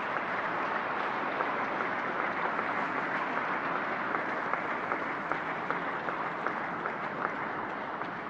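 Audience applauding, many hands clapping steadily, easing slightly near the end.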